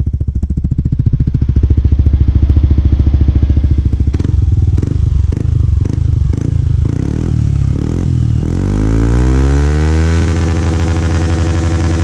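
Yamaha NMAX 155's single-cylinder four-stroke engine breathing through a JVT V3 aftermarket exhaust: it idles with a deep pulsing note, is blipped several times, then revs up with a rising pitch and is held at high revs.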